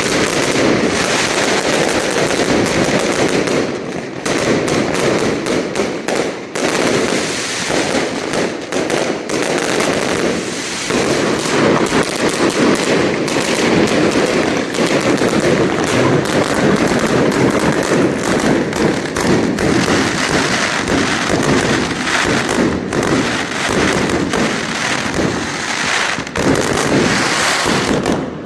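Fireworks display going off, a dense, continuous rapid crackle of many bursts overlapping, with no pauses.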